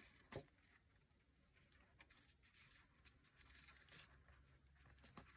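Near silence: faint rustling of paper pages and waxed linen thread being handled, with a light click about a third of a second in and another near the end.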